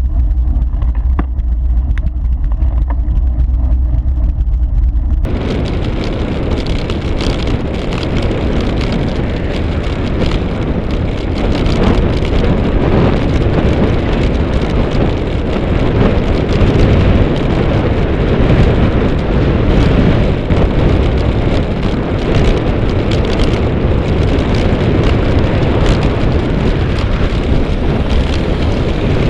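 Steady rushing wind and road noise on a bicycle-mounted camera's microphone while riding. About five seconds in it changes abruptly from a low muffled rumble to a louder, brighter rush.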